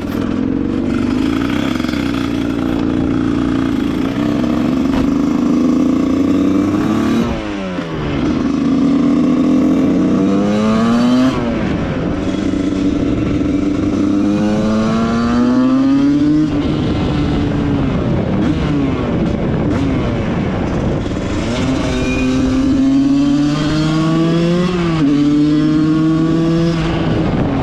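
Tuned Husqvarna 125 SM two-stroke engine with an expansion chamber pipe, accelerating hard through the gears. Its pitch climbs in each gear and drops at each shift, several times over.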